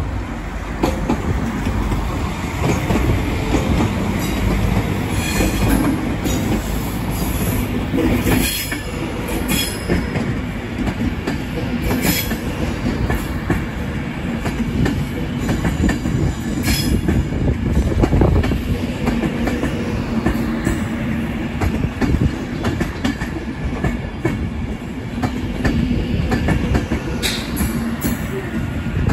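Avanti West Coast Class 390 Pendolino electric train passing slowly close by. Its wheels rumble and clatter over the rail joints and pointwork, with a few short, sharp wheel squeals scattered through.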